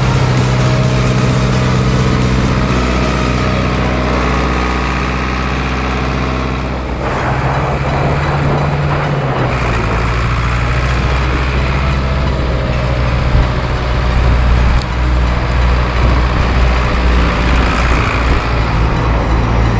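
Heavy farm machinery running: a steady engine drone, whose sound changes about seven seconds in to a lower drone mixed with mechanical rattle.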